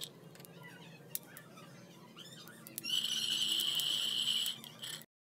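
Peanuts being dry-roasted and stirred in a pan: scattered light clicks of the nuts, then about three seconds in a loud rattling scrape for a second and a half as they are stirred, before the sound cuts off abruptly.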